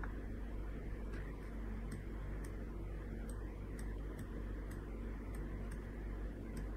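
Small sharp clicks from a computer mouse, roughly two a second and unevenly spaced, as a trading chart is scrolled, over a steady low hum.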